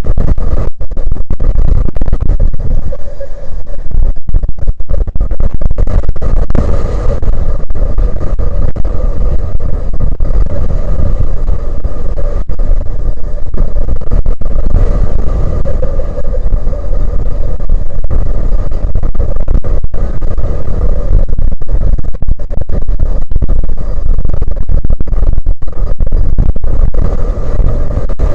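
Strong wind buffeting the microphone, loud and near overload, a heavy low rumble with constant gusty flutter.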